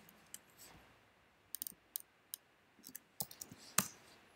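Computer keyboard keys clicking in short, irregular runs of taps as a short line of code is typed and entered.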